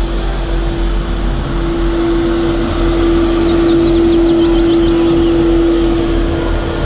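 Street sweeper truck driving past with its brushes working on the road: engine rumble and scrubbing noise under a steady humming tone, all growing louder about a second and a half in and easing near the end.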